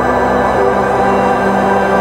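Ambient drone music: several sustained tones layered together, held at an even loudness.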